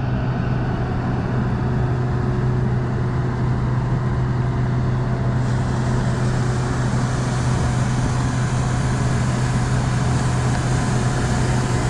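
Steady drone of farm machinery engines while a combine unloads wheat into a grain cart, with a hissing rush that gets brighter about halfway through.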